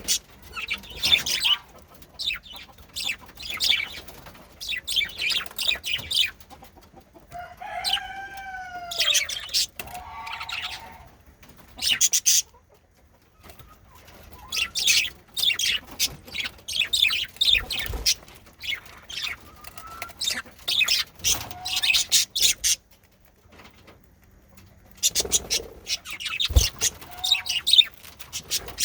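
Male budgerigars chirping and chattering in quick bursts, broken by short lulls. One brief pitched call comes about eight seconds in.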